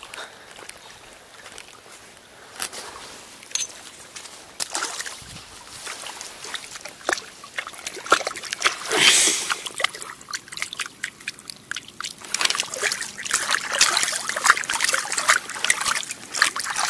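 Water splashing and trickling in small irregular splashes, with many short clicks that grow busier about halfway through.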